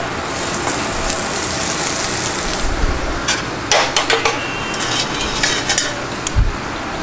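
Pepper-crusted steak searing in hot oil in a saute pan, a steady sizzle, with several clinks and knocks of pans and utensils on the range in the second half.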